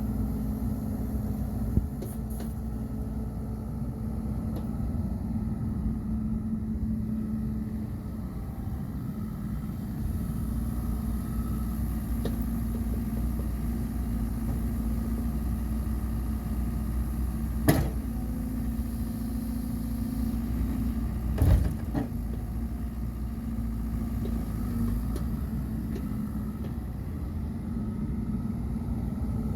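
Diesel engine of a 2013 Bobcat E50 compact excavator running steadily with a low, even hum. Three short sharp clunks come about two seconds in, around eighteen seconds in and around twenty-one seconds in.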